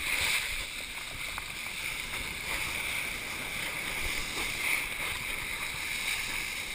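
Kiteboard riding a wave: a steady rush and hiss of water and spray under the board, with wind buffeting the chest-mounted microphone.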